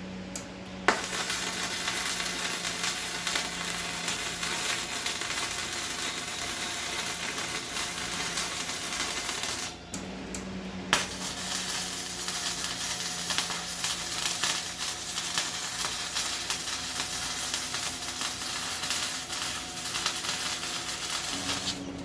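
MIG welding arc crackling steadily as a bead is laid on steel tubing, starting sharply about a second in, pausing for about a second near the middle, then running on for a second bead.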